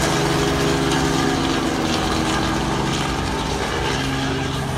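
Small helicopter flying low overhead: a steady drone of engine and rotor.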